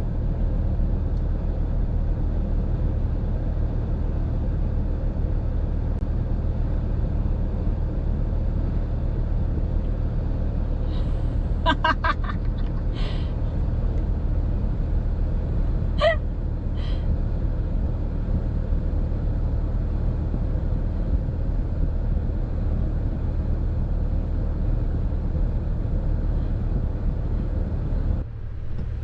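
Steady low rumble of a car, heard from inside, with brief faint high-pitched chirps about 12 and 16 seconds in.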